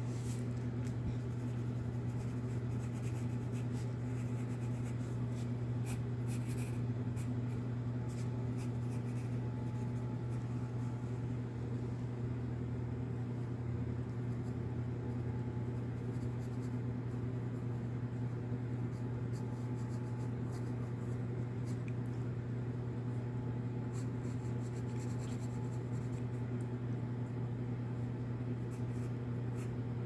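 A No. 2 graphite pencil scratching across sketchbook paper in many short shading strokes, over a steady low hum.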